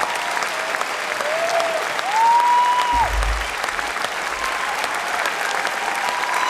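Audience applauding, with a few long whistles sliding above the clapping.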